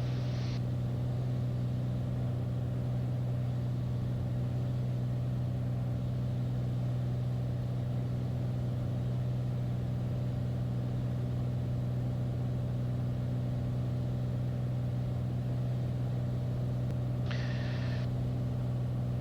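Steady drone of a Beechcraft A36 Bonanza's piston engine and propeller, heard in the cockpit, with the props set to 2,500 rpm while holding pattern altitude. A short burst of hiss comes about seventeen seconds in.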